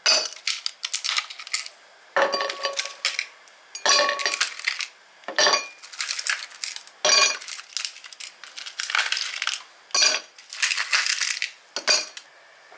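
Glasses and kitchen utensils clinking and clattering in short bursts every second or two, a few of them ringing briefly.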